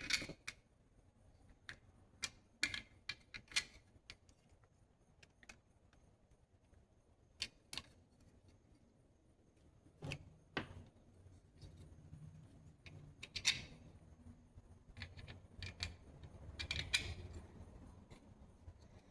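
Scattered sharp clicks and taps of small parts being handled and fitted: pegs and pedestals pushed into a dice-stand plate and their set screws tightened, with light rubbing in between.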